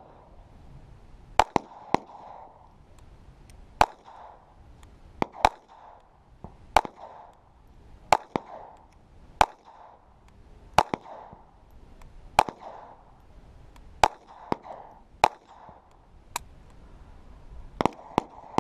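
Walther P22 pistol firing Federal Game Shok .22 LR rounds in a slow string, about one shot every one to two seconds, each shot followed by a short echo. The pistol cycles every round without a stoppage.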